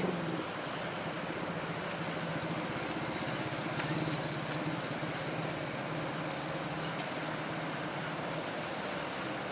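Engine of an old Toyota 'buaya' dump truck running steadily at low revs as the truck drives slowly up a gravel road. The note swells a little about four seconds in.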